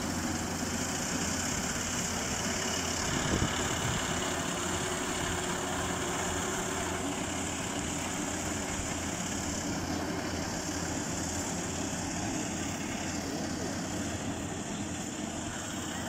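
Compact tracked rice combine harvester running steadily as it cuts and threshes ripe rice: engine and threshing machinery together, slightly fainter near the end.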